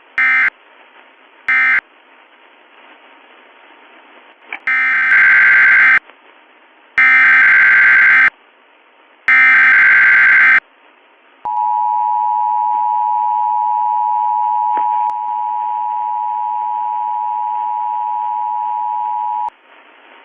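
Emergency Alert System data tones: two short warbling end-of-message bursts, then three longer warbling header bursts that open a new alert. These are followed by the steady two-tone attention signal (853 and 960 Hz), held for about eight seconds and cut off cleanly.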